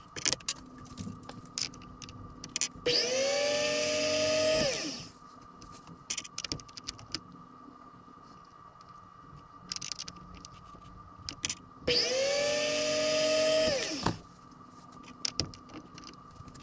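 A small electric power tool is run twice. Each time its motor whines up quickly, holds a steady pitch for about two seconds, then winds down. Light clicks and taps come in between.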